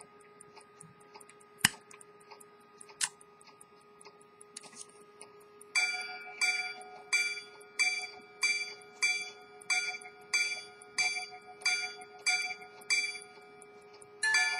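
Swiss quarter-repeater pocket watch movement ticking quickly and faintly, with a few sharp clicks, the loudest about a second and a half in. From about six seconds in, its repeater hammers strike the gong about a dozen times at an even pace, then give a quick two-note strike near the end.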